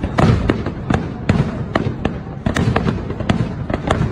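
Aerial firework shells bursting in a rapid barrage: many sharp bangs, several a second at uneven intervals, over a steady low rumble from overlapping explosions.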